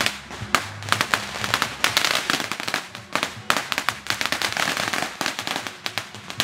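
Strings of firecrackers going off: a rapid, uneven run of sharp bangs and crackles.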